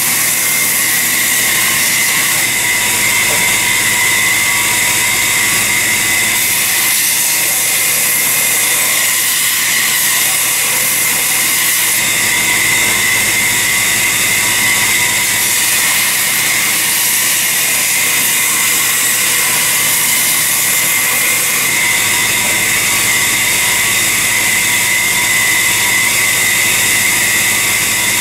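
Electric shop grinder running steadily with a constant whine, grinding a blade forged from a file.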